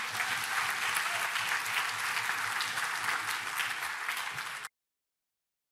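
An audience applauding steadily, cut off abruptly near the end.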